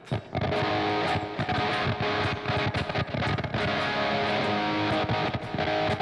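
Electric guitar playing sustained chords, its signal carried by a Nux C-5RC 5.8 GHz wireless guitar system and still coming through at long range.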